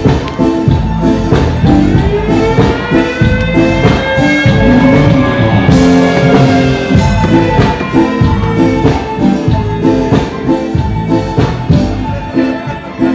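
Music with a steady drum beat and a tone that slowly rises and then falls in the middle.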